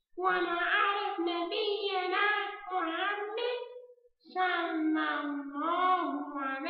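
A hand puppet's voice singing, done by the puppeteer, with a short break about four seconds in.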